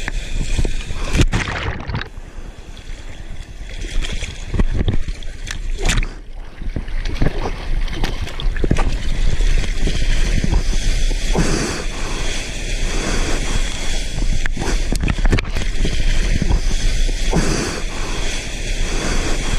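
Seawater splashing and wind buffeting against an action camera's microphone while surfing: a steady rumbling rush broken by many sudden splashes and hits.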